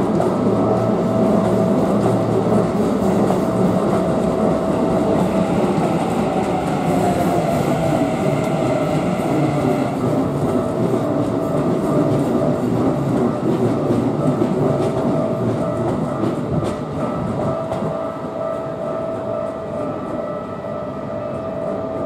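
Keikyu electric train running past a level crossing, its wheels clattering over the rails, while the crossing's warning bells ring on with a steady tone. The train noise eases off in the last few seconds.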